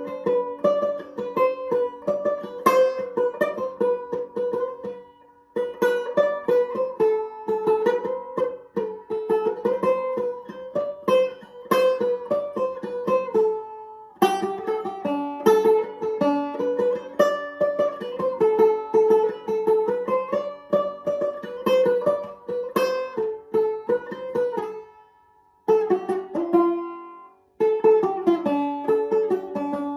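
Banjo played solo, picked in free, exploratory phrases rather than bluegrass style. There are brief breaks between phrases about five, fourteen and twenty-five seconds in.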